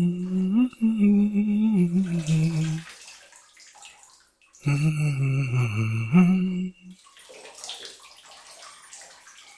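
A man humming a slow tune in two phrases, low held notes that step up and down, with gentle bathwater sloshing in the pauses between them.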